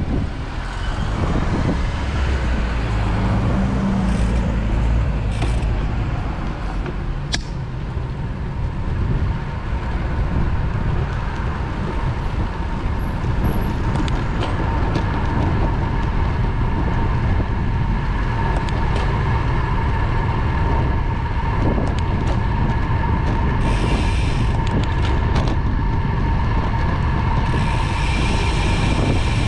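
Road-bike riding noise: steady wind rumble on the camera microphone and tyres running on the road, with a steady whine through it and a few scattered ticks.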